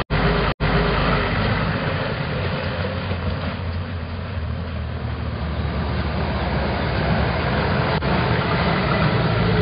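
Vehicle engine sound effect for a military jeep driving past: a steady low rumble under a rushing hiss. The sound cuts out for an instant twice in the first second.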